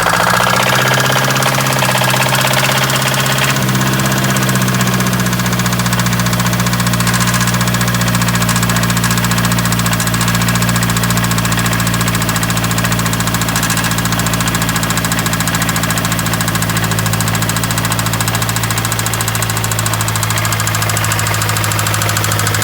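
Mazdaspeed3's turbocharged 2.3-litre four-cylinder idling through an exhaust with the resonator and second catalytic converter removed, with rod knock from a bearing spun when the engine ran out of oil. The idle shifts down slightly about three and a half seconds in, then holds steady.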